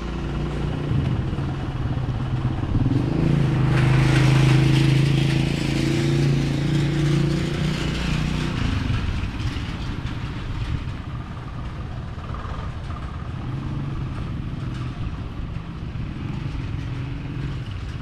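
A motor vehicle's engine running at a steady pitch close by. It grows louder to a peak about four to five seconds in and fades away by about nine seconds, leaving a low, steady street background.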